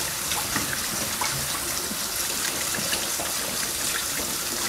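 Kitchen tap running steadily onto drained canned chickpeas as they are rinsed, water splashing, with a few small clicks.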